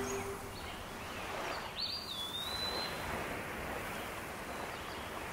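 Steady outdoor shoreline ambience of water and wind noise, with one bird call about two seconds in: a quick upward sweep that settles into a held thin whistle.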